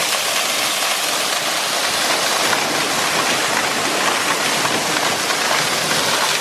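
A waterfall's steady, loud rush of falling water.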